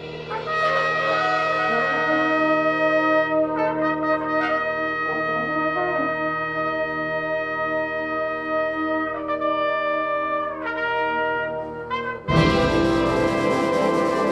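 Concert band playing slow, sustained brass chords that shift every few seconds. About twelve seconds in, the full band comes in suddenly and much louder.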